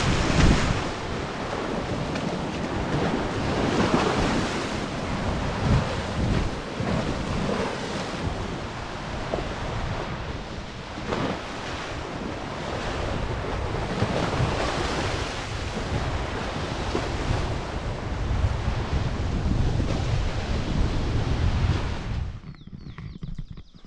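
Lake Michigan waves breaking and washing up on a pebbly beach, swelling and easing every few seconds, with wind buffeting the microphone. Shortly before the end the surf cuts off suddenly to a much quieter scene.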